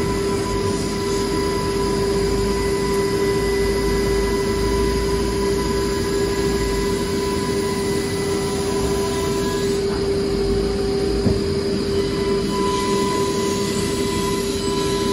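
CNC wood router machinery running: a steady high tone over a dense, even mechanical noise.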